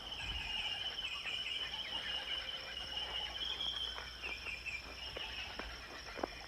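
Insects chirping in a steady high-pitched chorus, with a few short chirps standing out near the end.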